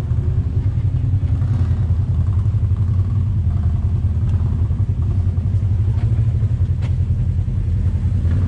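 Polaris RZR side-by-side's engine running steadily at low speed, a deep even drone with no revving, with a few faint clicks or knocks over it.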